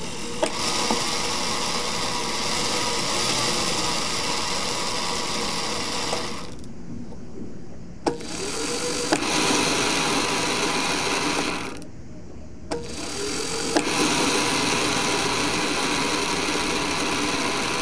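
The homemade electric V8 model's solenoid starter clicks in and a small gear cranks the big ring gear with a steady mechanical whirring grind, in three long runs split by two short lulls. Twice a click is followed by a rising tone as the electric motor spins up.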